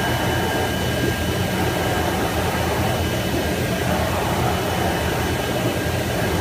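IECHO BK3 digital flatbed cutting table running: a steady hum and airy rush, typical of its vacuum hold-down blower, with two faint steady high whining tones, while the cutting head carriage travels over the sheet.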